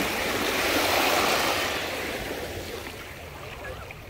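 A shallow wave washing up over sand around the feet and draining back, a rushing hiss that swells to its loudest about a second in and then fades.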